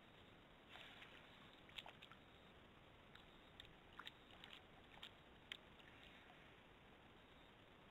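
Faint, scattered small splashes and wet clicks of water as a giant anteater moves and bathes in a shallow waterhole, over a steady low hiss.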